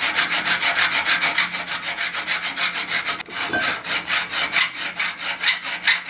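Square hand file worked back and forth in a shallow groove in a steel rod, in quick even strokes of about five a second, with a brief pause about three seconds in.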